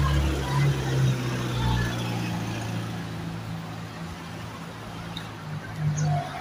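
Diesel engine of a coach bus idling: a steady low hum, with its deepest rumble dropping away about two seconds in.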